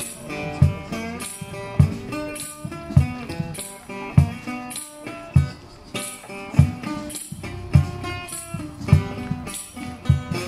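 Resonator guitar picked in a blues style, with a low percussive thump keeping the beat about every 1.2 seconds and a jingling shimmer on top.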